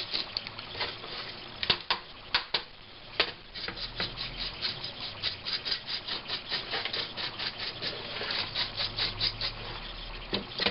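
Hand-sanding of a laptop's plastic case: quick, even back-and-forth scraping strokes, about four a second, with a few sharper clicks in the first few seconds.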